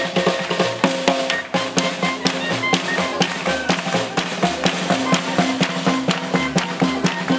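Small acoustic swing band playing live, with a drum struck with sticks keeping a steady beat under clarinet, upright double bass and acoustic guitar.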